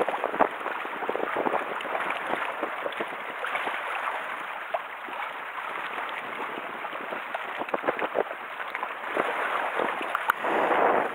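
Sea water washing and splashing against shore rocks: a continuous wash full of small slaps and gurgles, with a louder surge of water about ten seconds in.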